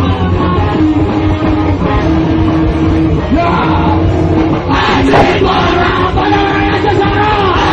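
A metal band playing loud and live, with distorted guitars and drums, and shouted voices coming in about halfway through.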